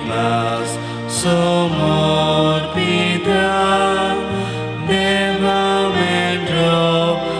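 Church hymn music: sustained chords over a bass line that moves about once a second, with a singing voice on top.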